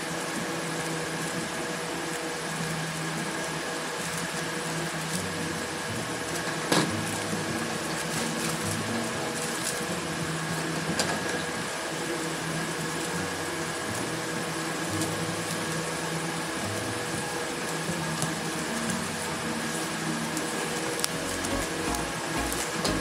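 Steady mechanical hum with room noise, broken by a few short sharp clicks from scissors snipping through plastic packaging.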